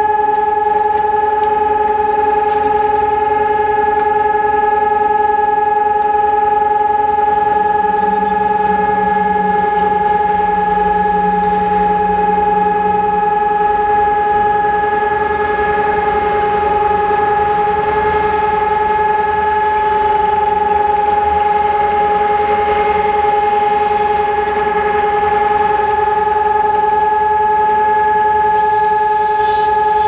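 Electronic civil-defence siren sounding a steady, unbroken test tone at one constant pitch, the signal of a routine siren test rather than a real alarm.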